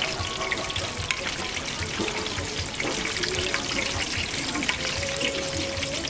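Spring rolls deep-frying in a wok of hot oil: a steady, dense sizzle and crackle of bubbling oil.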